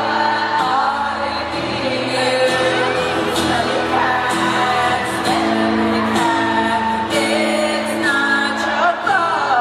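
Two acoustic guitars strumming held chords, with a woman's voice singing over them, in a live performance.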